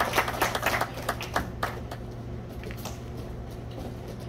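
Scattered applause from a small group, dying away over the first two seconds, with a few faint claps afterwards over a low steady hum.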